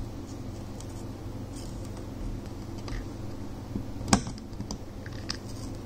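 Soldering iron pressing copper desoldering braid onto circuit-board pads: scattered small clicks and crackles, the sharpest about four seconds in, over a steady low hum.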